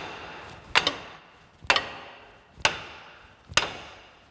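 Hammer blows struck from below on the inner CV joint of a Kia Sorento BL's front intermediate shaft: four sharp strikes about a second apart, each ringing briefly. The joint will not come off, held by a bolt that the mechanic suspects has been screwed in through it.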